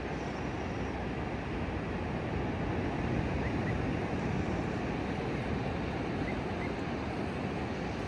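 Atlantic Ocean surf breaking and washing steadily on a flat beach, a continuous wash that swells a little about three seconds in, with some wind on the microphone.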